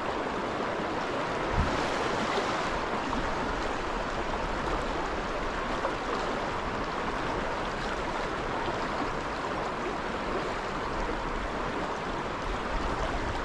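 Steady rush of flowing stream water, with one brief knock about a second and a half in.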